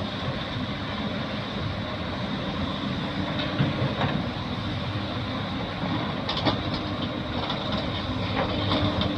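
Caterpillar excavator's diesel engine running steadily, with a few short metallic knocks from the machine working.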